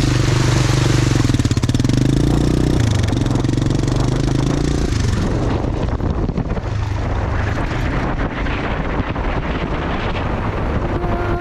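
A motorbike engine running while riding, holding a steady note for about five seconds, then easing to a lower rumble mixed with road and wind noise.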